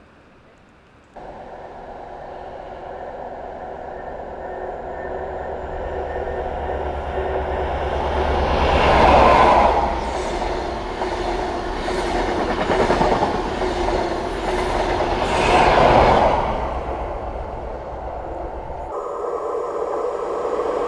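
A CrossCountry passenger train passing close by on the line, with rumble and wheel-on-rail noise building over several seconds to loud peaks around the middle and then easing. Near the end a second train, a green diesel multiple unit, approaches with a steady engine drone that grows louder.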